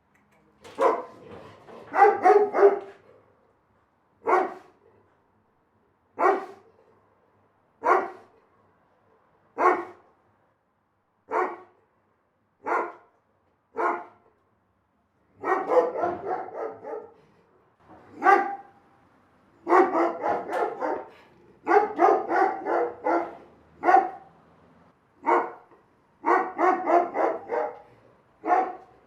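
A big dog barking: single barks spaced a second or two apart, then, from about halfway through, quick runs of several barks in a row.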